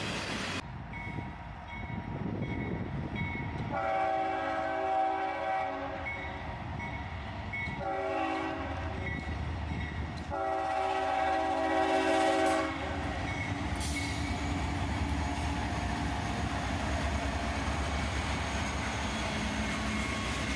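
Norfolk Southern locomotive sounding its air horn: a long blast, a short one, then another long one. The steady rumble of the train rolling by follows.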